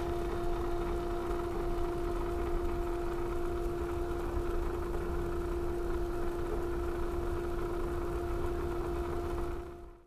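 A motor running steadily with a constant whining hum over a low rumble, fading out just before the end.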